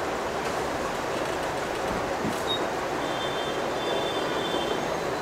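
Steady hiss of blowing air, with a faint high whine coming in about halfway through.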